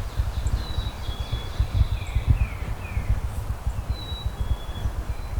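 Wind buffeting the microphone with a constant low rumble, the loudest thing heard. Small songbirds call over it: thin whistled notes, and a run of three quick falling chirps about two seconds in.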